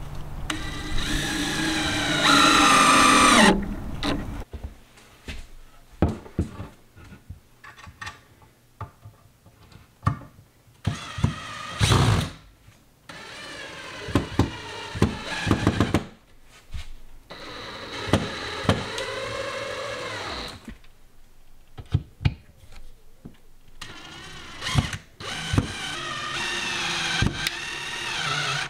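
Cordless drill/driver driving screws through flat steel shelf brackets into wood, in four runs of a few seconds each; in the first run the motor's pitch drops as the screw bites and seats. Short knocks and clunks come between the runs.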